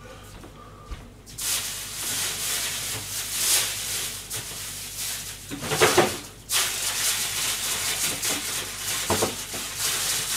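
Water running hard from a kitchen tap, turned on suddenly, cut off for a moment about six and a half seconds in, then running again.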